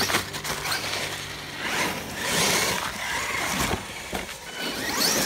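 RC short-course trucks driving on gravel and dirt: motors whining up and down, tyres scrabbling on grit, with sharp knocks as a truck crashes and tumbles over.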